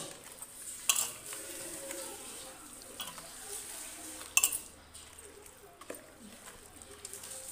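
Chicken pieces being mixed by hand in a wet spice-and-yogurt marinade in a stainless steel bowl: soft scraping and stirring, with a few sharp knocks against the bowl, the loudest about four and a half seconds in.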